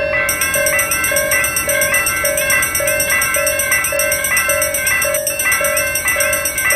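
Japanese level-crossing warning bells ringing kan-kan: a steady ding repeating about twice a second, joined just after the start by a second, higher and faster ringing layered over it.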